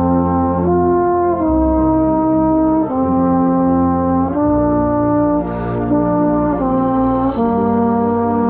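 Marching band brass playing a slow melody of long held notes, the pitch changing about every second, with a trombone loud and close and lower brass holding bass notes beneath.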